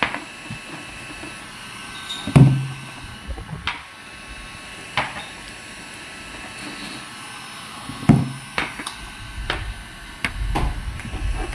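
Glass jars and spoons being handled on a table while the jars are filled: scattered clinks and knocks, with two louder thuds about two and eight seconds in.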